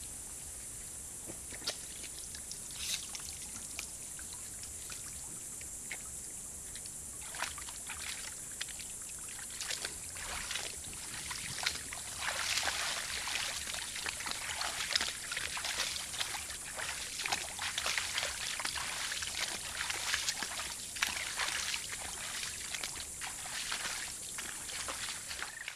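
A cow moose and two calves moving about in a shallow marshy pond: irregular splashing, sloshing and trickling of water, getting busier about ten seconds in. Behind it runs the steady high hiss of the trail camera's microphone.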